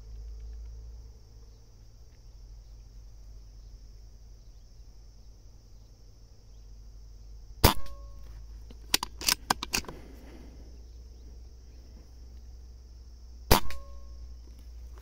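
Two shots from a Beeman air rifle, about six seconds apart, each a sharp crack with a short ringing after it. Between them comes a quick cluster of clicks.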